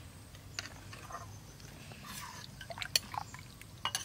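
Braised goat stew being ladled over noodles in a ceramic bowl: soft wet spooning sounds with a few sharp clicks of utensils against the bowl.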